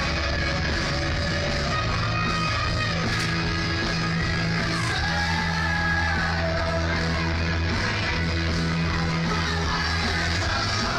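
Music playing steadily with a prominent bass line.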